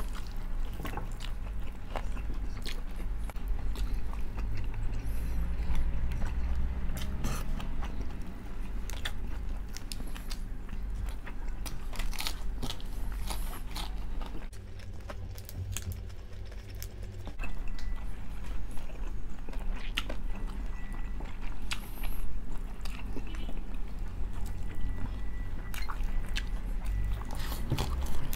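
Close-miked eating sounds: chewing and biting with scattered short crunchy clicks, over a steady low hum.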